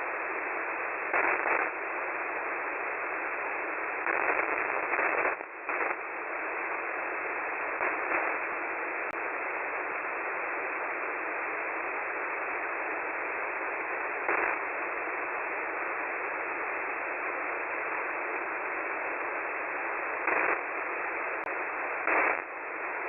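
Shortwave radio receiver tuned to 4617.99 kHz, giving steady hiss and static with no clear signal. The hiss swells louder briefly several times and dips once about five seconds in.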